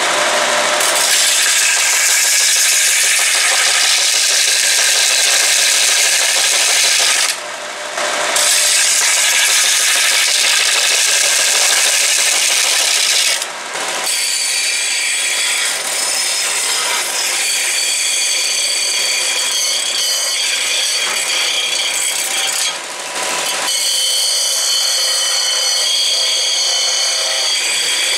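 Bench belt and disc sander running while a chainsaw bar's steel rails are ground against the abrasive to dress them flat: a steady grinding of metal on abrasive that eases off briefly three times.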